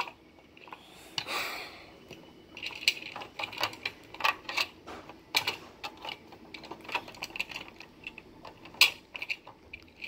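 Irregular light clicks and taps of small plastic toy figures being handled and set down on a tabletop, with a brief rustle about a second in.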